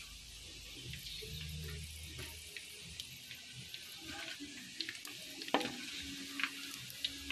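Marinated pork pieces frying in hot oil with a steady sizzle. A few sharp clicks of the spoon against the pan come in the second half.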